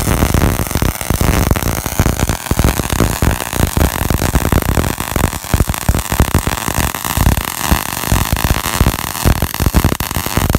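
MIG welder running a practice bead: the short-circuit arc crackles loudly and steadily as the wire feeds into the weld puddle under shielding gas, then cuts off abruptly right at the end.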